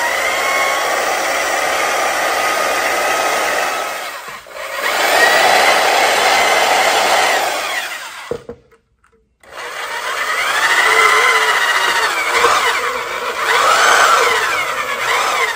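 Portable band saw running and cutting through a red plastic jack base in three runs, with a brief dip about four seconds in and a stop of about a second around eight seconds in. Its whine wavers in pitch as the blade bites into the plastic.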